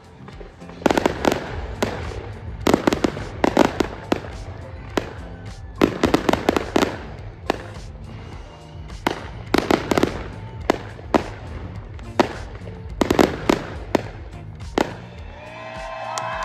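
Aerial fireworks display: clusters of sharp bangs and crackles going off every second or two.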